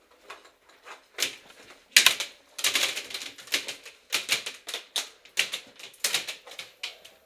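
Airsoft guns firing: a string of sharp clacks in uneven runs, thickest about two to three seconds in.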